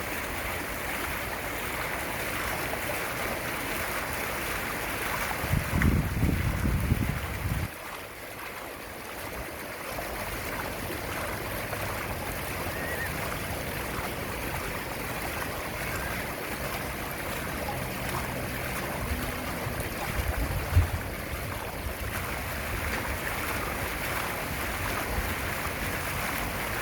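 Fountain water splashing and rushing steadily, with a low rumble for a couple of seconds about six seconds in and a short drop in level just after.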